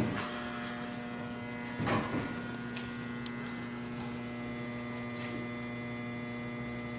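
Steady electrical hum with a buzzy stack of overtones, broken by a short noisy clatter about two seconds in.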